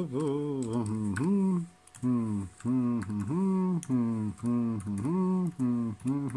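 Laptop keyboard keys clicking as a password is typed in, while a man hums a tune in short held notes over the clicks.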